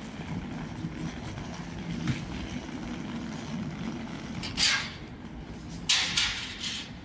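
City street traffic with a steady low engine rumble, broken by two short hisses about four and a half and six seconds in, the second one longer and louder.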